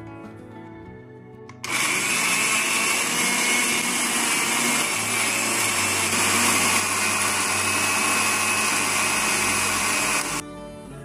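Electric blender grinding green chilies, shallots and garlic into green sambal paste. It starts suddenly about two seconds in, runs at a steady pitch for about nine seconds, then cuts off suddenly.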